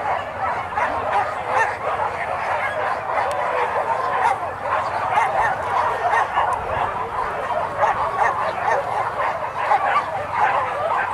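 A pack of boar-hunting dogs barking and yelping together, many voices overlapping in one continuous chorus.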